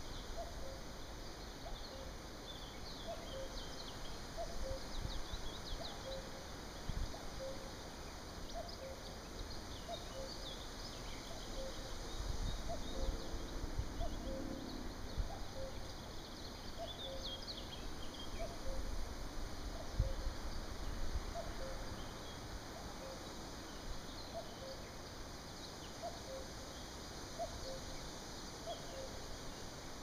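Common cuckoo calling its falling two-note 'cu-coo' over and over at a steady pace, with small songbirds chirping faintly behind it. Gusts of wind rumble on the microphone midway.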